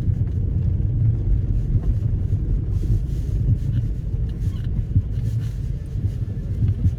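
Nissan X-Trail T30 with the 2.0 petrol engine driving over rough ground: a steady low rumble with scattered light knocks and rattles.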